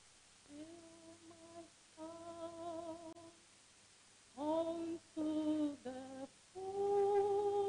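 A woman's voice singing the opening of a hymn, one voice in slow, long-held notes with short breaks between phrases.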